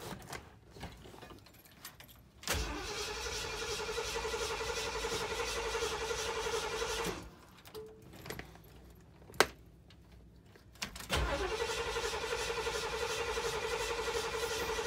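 Ford Bronco's starter cranking the engine in two attempts of about four and a half seconds each, with a sharp click between them; the engine turns over but does not fire. The owner later puts this down to the fuel line from the tank not being connected, so no fuel reached the carburettor.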